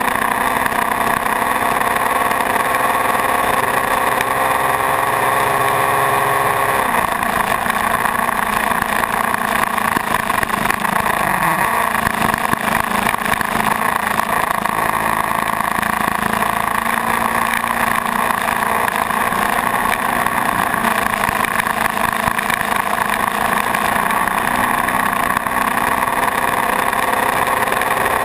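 Suzuki GS500's air-cooled parallel-twin engine running at highway speed, under steady wind and road noise. The engine note drops abruptly about seven seconds in, then dips and climbs back around twelve seconds.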